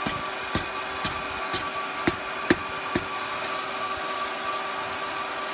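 Hand hammer striking steel on an anvil: seven blows about two a second, stopping about three seconds in, over a steady hum.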